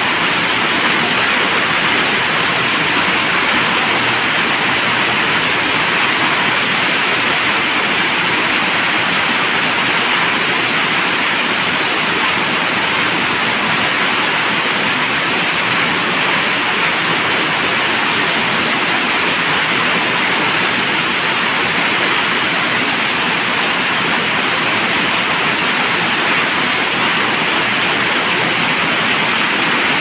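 Heavy rain pouring steadily, a dense even hiss, falling on the corrugated roof overhead and the waterlogged ground, with runoff streaming off the roof edge.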